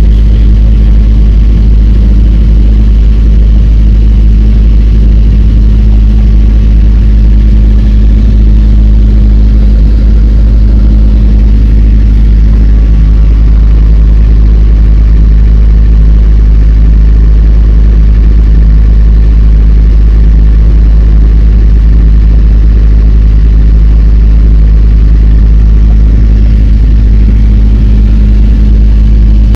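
Motor cruiser's inboard diesel engine running loudly and steadily at cruising speed, a constant low hum that does not change in pitch.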